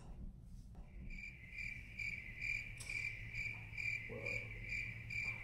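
Crickets chirping in an even, pulsing rhythm of about two and a half chirps a second, starting about a second in: a comic 'crickets' sound effect marking an awkward silence.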